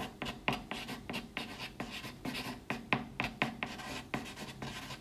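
Chalk writing on a blackboard: a quick, irregular run of short scratching strokes and taps, several a second, as letters are drawn.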